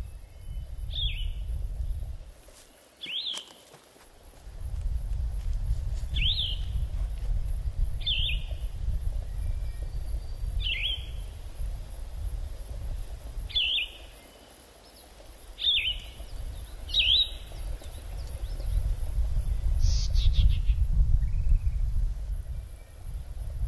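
A bird calling in short, sharp single chirps, one every couple of seconds, over a steady low rumble that drops out twice.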